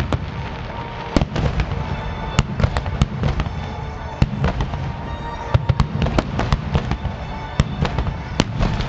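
Underwater fireworks going off in quick, irregular succession: a dense run of sharp bangs and crackles over a continuous low rumble.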